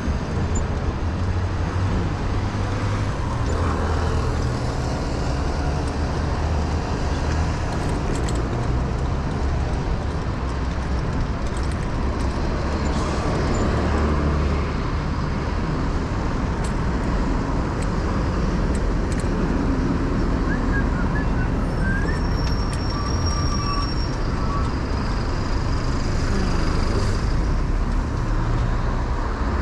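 City street traffic heard from a moving bicycle: a continuous mix of car and bus engines and tyre noise, with a heavy low rumble throughout.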